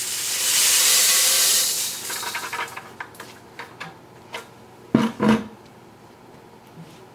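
Sorghum grain poured from a bucket into a stainless steel bowl: a loud rushing patter of seed on metal for about two seconds, thinning out into scattered rattles. Two dull knocks follow about five seconds in.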